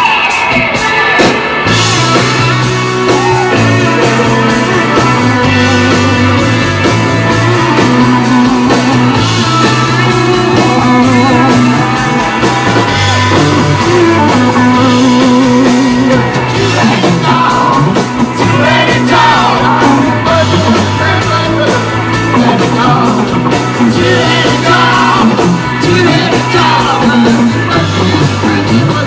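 Live rock band playing at full volume: electric guitars, electric bass and drums drive a repeating riff, with the bass stepping back and forth between two low notes. A singer's voice comes in over the band now and then.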